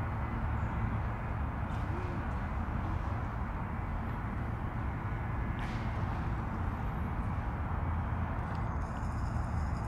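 Steady outdoor background noise: a constant low rumble under an even hiss, with a couple of faint, brief high chirps midway.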